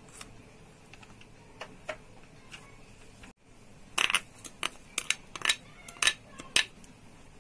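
A spoon clicking and tapping against a glass bowl and a plate as chopped herbs are spooned into egg batter: a few faint taps, a brief gap about three seconds in, then a run of sharper clicks about every half second.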